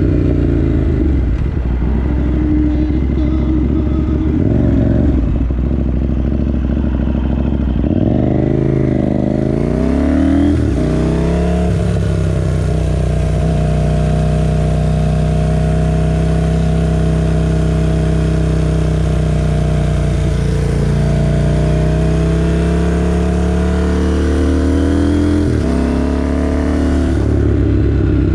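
Motorcycle engine heard from the rider's seat, its pitch climbing in steps as it goes up through the gears about eight to twelve seconds in, then running steadily at cruising speed. It rises again and dips sharply near the end, as with a gear change or the throttle closing.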